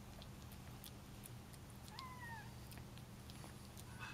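A Bengal kitten gives one short, high meow about two seconds in, its pitch dropping slightly, over faint clicks of a kitten eating raw salmon.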